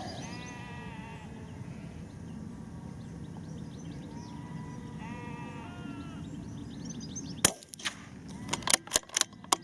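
A single shot from a Bergara .22LR rifle about seven and a half seconds in, then a quick run of sharp clicks as the bolt is worked. Sheep bleat twice beforehand.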